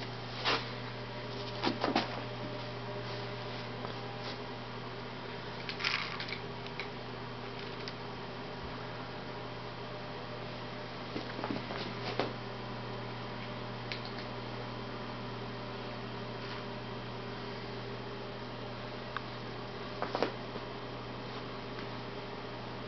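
Steady low electrical hum, with a handful of short clicks and knocks scattered through it.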